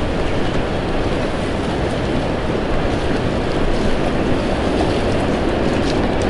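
Strong wind buffeting the camera microphone: a loud, steady rush of noise with a low rumble underneath.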